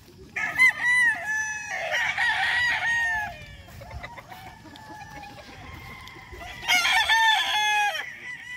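Gamefowl roosters crowing in two loud bouts, the first starting about half a second in and lasting some three seconds, the second near the end.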